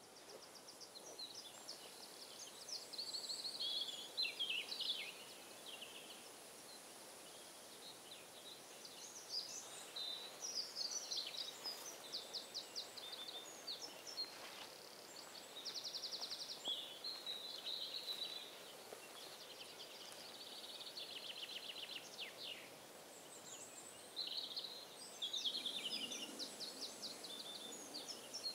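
Woodland songbirds singing: a string of short warbling phrases and quick trills that come every second or two, over a faint steady hiss.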